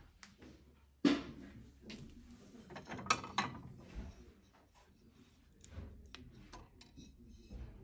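Porcelain plates clinking and knocking against each other as a plate is lifted off a stack and set back down. There is a sharp clink about a second in, a cluster of clinks around three seconds, and lighter ticks near the end.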